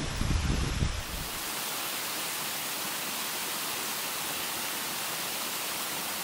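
Wind buffeting the microphone for about a second, then, after an abrupt change, a steady, even rushing hiss at a constant level.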